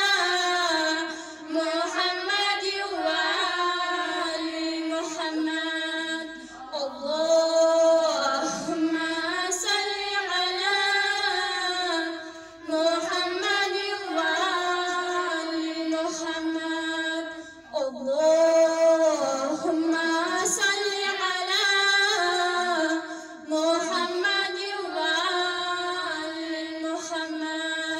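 A woman's solo, unaccompanied voice chanting a religious recitation in long, held melodic phrases. There are brief breaks for breath about every five or six seconds.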